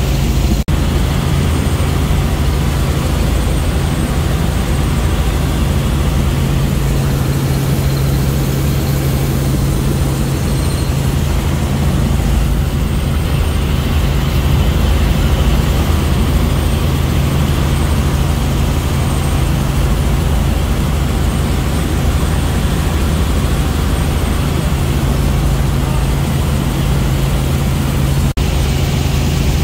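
Steady drone of a helicopter's engine and rotors, heard from inside the cabin, with a strong low hum running under the noise.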